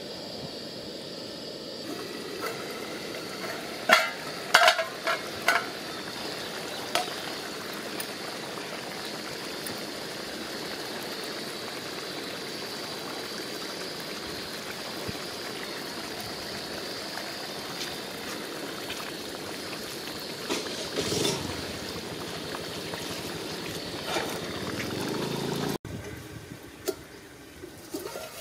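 Pot of goat-kidney curry simmering on a gas stove, a steady bubbling hiss, with a few sharp metal clinks of the steel lid about four to five seconds in.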